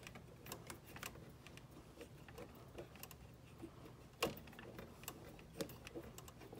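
Faint, irregular clicks and taps of hands handling small refrigerator parts: a plastic clip, metal tubing and a screwdriver. One sharper click comes about four seconds in.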